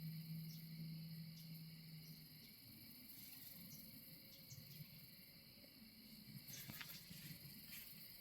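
Faint, steady chorus of crickets and other insects. A low hum fades out about two seconds in, and a few soft clicks come near the end.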